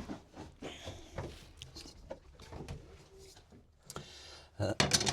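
Soft rubbing and scattered light knocks of wooden parts being handled, with a quick cluster of louder wooden clicks and knocks near the end.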